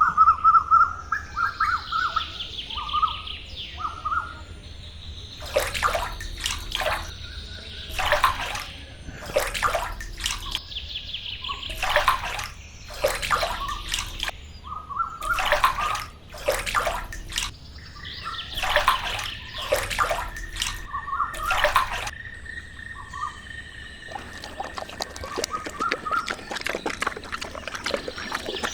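Small birds chirping and singing, with repeated short, sharp scraping or clicking sounds in groups from about six to twenty-two seconds in. An even hiss comes in near the end.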